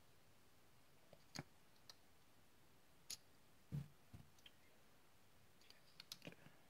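Faint, scattered metal clicks and a couple of light knocks as an American 1105 padlock is handled and a pick or tension tool goes into its keyway, with a small cluster of clicks near the end.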